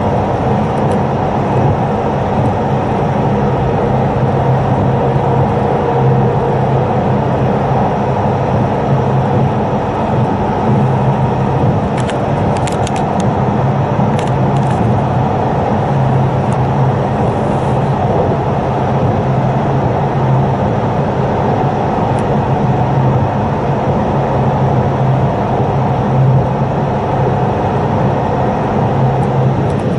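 Steady running noise of a JR Hokkaido limited express electric train at speed, heard inside the passenger cabin: a constant low rumble and hum, with a few brief clicks about twelve to fifteen seconds in.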